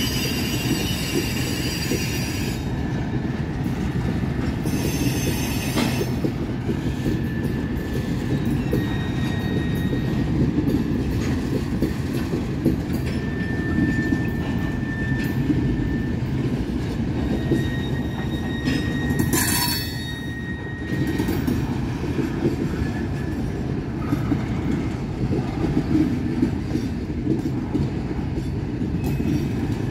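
Freight cars of a CN freight train rolling past on steel rails: a steady low rumble with thin, high-pitched wheel squeals that come and go, and one brief louder squeal about two-thirds of the way through.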